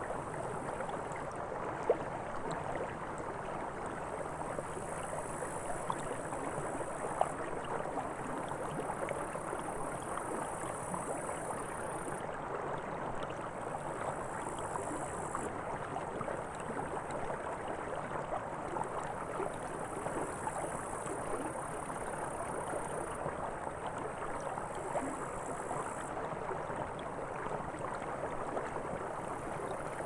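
Steady babbling and gurgling of a flowing creek, with a thin high hiss above it that steps up and down in level every few seconds. Two sharp ticks stand out, about two seconds in and around seven seconds.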